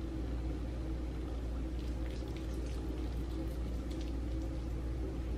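Soft wet squishing and faint clicks of fingertips massaging an oily cleansing balm over the eyes and face, strongest in the middle, over a steady low room hum.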